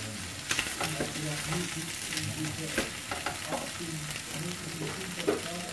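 Rice vermicelli, bean sprouts and meat sizzling in a frying pan while being stir-fried and tossed with chopsticks and a wooden spatula. Short scrapes and taps of the utensils against the pan run through the sizzle.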